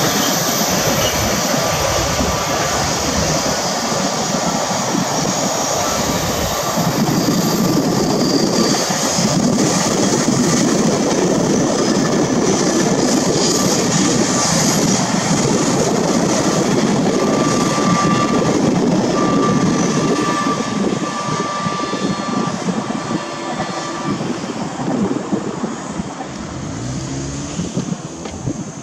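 Container freight train passing close by, its long string of wagons rolling steadily along the track, with a faint high tone coming and going now and then. The sound dies down near the end as the train draws away.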